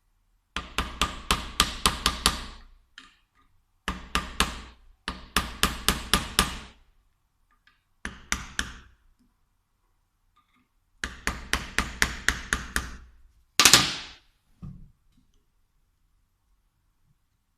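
Quick series of hammer blows, about four to five a second, in several short runs with pauses between them. A single louder, ringing strike comes near the end.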